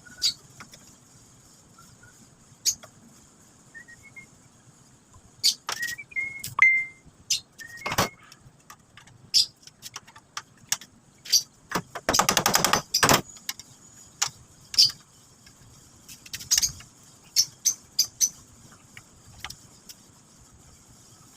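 Scattered metallic clicks, knocks and clinks of hand tools and parts being handled during repair work on a fryer, with a dense rattling burst lasting about a second near the middle.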